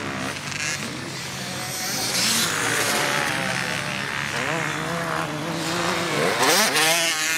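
Motocross dirt bike engines revving, their pitch rising and falling, with a sharp climbing rev about six seconds in.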